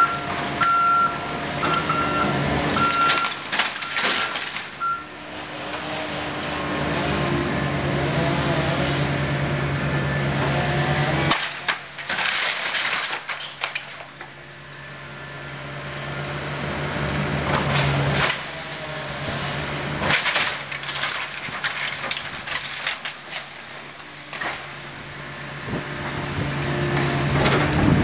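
Diesel engine of a heavy demolition machine running and working, its reversing alarm beeping steadily for the first five seconds. Loud crashes and clatter of debris break in several times, about 3, 12, 18 and 20 seconds in.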